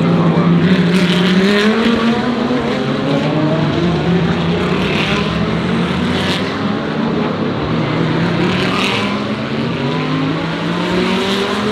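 Several GT3 race car engines running at moderate speed in a pack, their pitch rising slowly and dropping back at gear changes, as the field circulates under the safety car before a restart.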